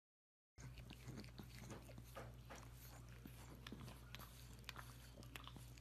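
A pug chewing and mouthing: faint, irregular wet clicks and smacks over a low steady hum, starting about half a second in.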